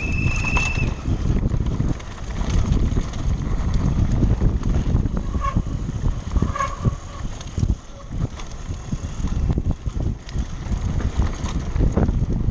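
Wind buffeting the microphone over a mountain bike rattling and knocking as it descends rough ground at speed. A brief high squeal sounds right at the start.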